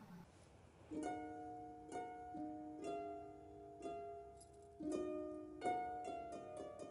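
Soft background music of plucked-string notes, a new note or chord about once a second, starting after a brief near-silent moment.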